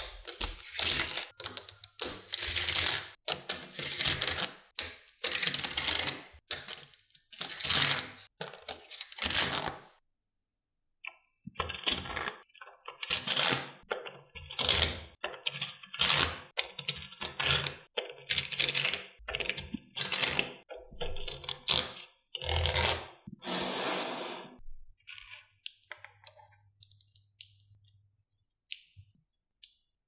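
Magnetic balls clicking and rattling against each other as they are pressed, shifted and snapped into place, in dense runs of sharp clicks. There is a brief break about ten seconds in, and the clicks come more sparsely near the end.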